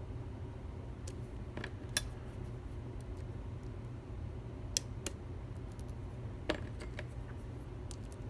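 Faint metallic clicks and ticks of a lock pick and tension wrench working the pins inside a challenge lock, scattered and irregular, with three sharper clicks spread through. A steady low hum runs underneath.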